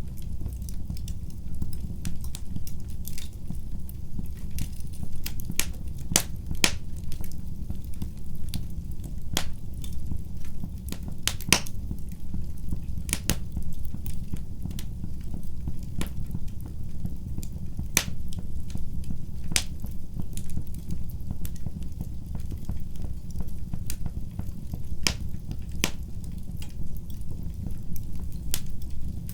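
Wood fire burning in a fireplace: a steady low rumble of the flames with irregular crackles and sharp pops from the burning logs, a few of them louder.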